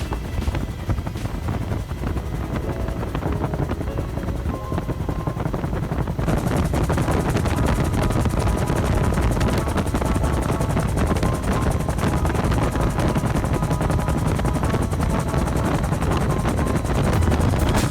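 Bell UH-1 Huey helicopter in flight, heard from on board: the rotor's fast beat and the turbine running steadily, growing louder about six seconds in.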